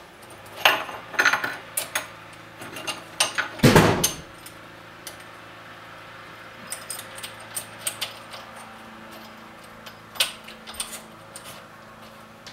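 Small metal parts clinking and tapping as the cush-drive gear, washer and nut are fitted onto the crankshaft of an Ariel Square Four engine, with one heavier knock about four seconds in.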